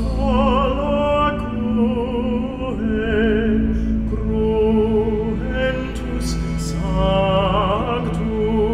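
Slow, dark music in an operatic style: a melody with wide vibrato over a steady low drone.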